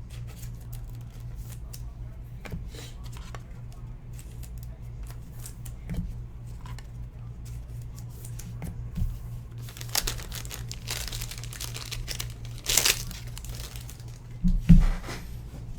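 Card pack wrappers being torn open and crinkled, with cards and packaging handled on a table: scattered small clicks, a longer spell of rustling near the end, and a couple of low thumps. A steady low hum sits underneath throughout.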